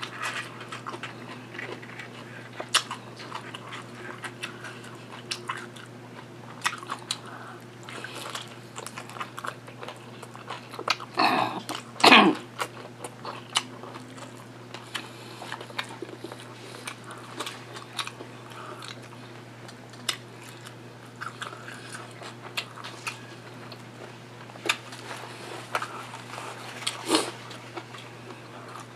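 Close-miked eating of birria tacos: biting, chewing and small crunches with soft clicks throughout, over a steady low hum. About twelve seconds in, a brief louder sound falls in pitch.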